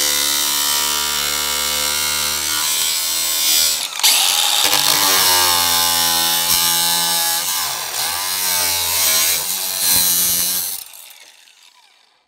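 DeWalt 20V Max cordless angle grinder with a cut-off wheel cutting through sheet steel: a steady high motor whine over the hiss of the wheel biting the metal. There is a short break about four seconds in, and the pitch sags under load. The grinder winds down near the end.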